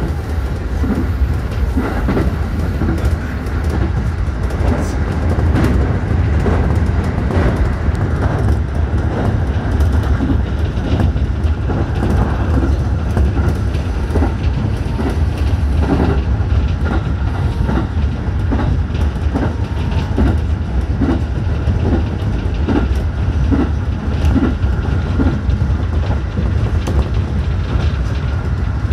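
JR Central 211 series 5000 electric train running at speed, heard from inside the front car: a steady low rumble with the wheels clicking over rail joints.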